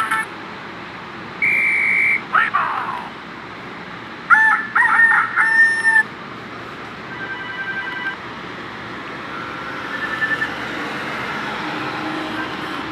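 A Nokia 3155i ringtone playing from a Nokia 150 phone's small loudspeaker. A short held beep and a quick falling glide come first, then about four seconds in a stepped run of tones ends on a held note, followed by fainter scattered tones.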